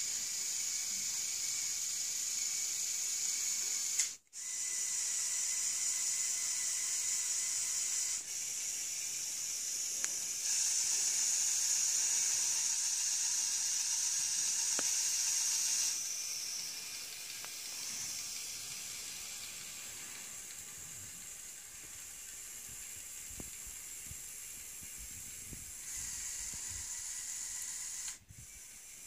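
Electric motor and plastic gear train of a Lego Technic 42009 mobile crane whirring as it works the boom. The whirr cuts out briefly about four seconds in and steps louder and softer several times as functions start and stop.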